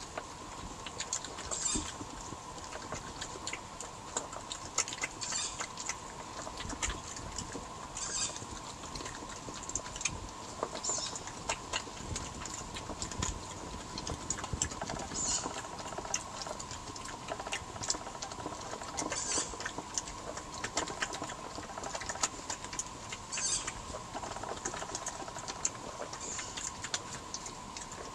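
Two European badgers eating peanuts, rice and fish from a plastic tray: irregular crisp crunches and clicks as they chew nuts and push them about. A steady faint hum runs beneath.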